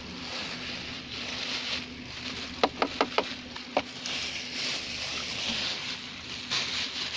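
Rustling and scraping handling noise that swells and fades, with a quick run of five sharp clicks or knocks about two and a half seconds in.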